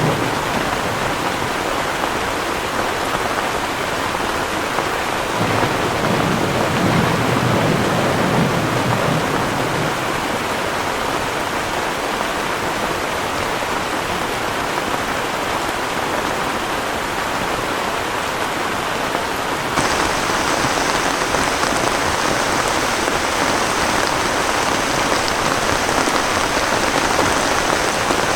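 Heavy rain falling steadily, with a low rumble of thunder about five to ten seconds in. The rain gets a little louder and hissier about twenty seconds in.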